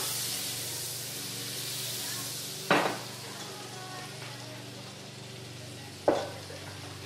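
Butter sizzling in a hot cooking pot, a steady hiss, with two sharp knocks a little over three seconds apart.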